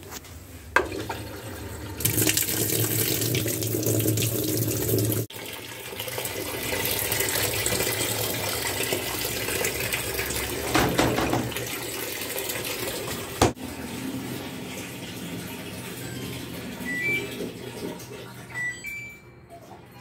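Water rushing into the tub of a Samsung top-load washing machine as it fills, the noise cutting off sharply twice. Near the end come a few short electronic beeps from the machine's control-panel buttons.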